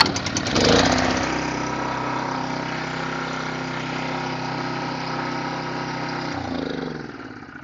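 Kyoritsu Wing Mower's small four-stroke engine being recoil-started. It catches about a second in and then idles steadily. Near the end its pitch drops and it winds down as it is shut off. This is a short test run after an engine oil change and V-belt cover refit, to check that the belt does not rub.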